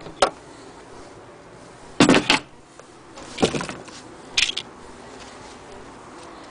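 Handling knocks and clatter at a wooden sewing-machine cabinet: a short knock near the start, a louder double clatter about two seconds in, then two more brief clatters over the next two and a half seconds.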